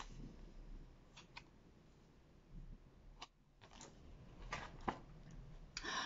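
Pages of a paper book being turned and handled: a few faint, scattered clicks and rustles.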